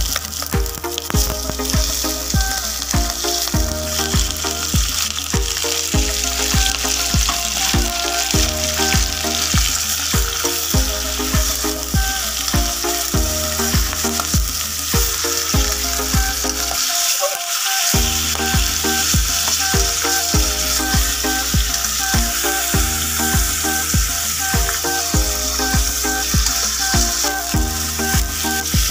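Background music with a steady beat over chicken pieces sizzling as they fry in a stainless steel pot with sautéed garlic and onion, with stirring near the end.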